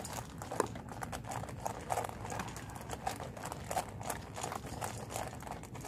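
Several dogs chewing dry kibble at once: a steady patter of irregular crunches, several a second.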